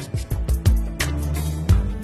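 Background music with a steady beat: drum hits over a bass line.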